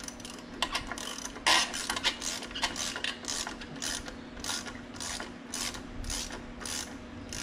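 Ratchet wrench clicking in short repeated strokes, about two or three a second, loosening the hose clamps on the air feed line to the turbo.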